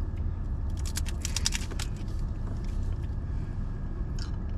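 Crisp tostada shell of a Del Taco Crunchtada crunching in a rapid run of cracks as it is bitten and chewed, about a second in, with a few more crunches near the end, over a low steady hum in the car's cabin.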